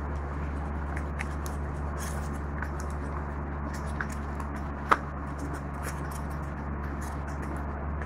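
A stick stirring slime mixture in a plastic cup: scattered small clicks and taps against the cup, with one sharper knock about five seconds in, over a steady low hum.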